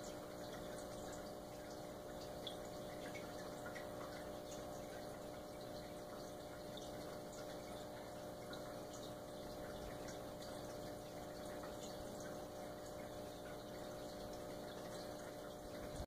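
Faint steady hum and hiss, with a few faint, scattered ticks.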